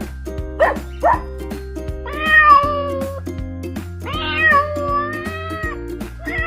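A cat meowing: two long, wavering meows, the second longer, with a third starting near the end, over background music with a steady beat. Two short, sharp calls come about a second in.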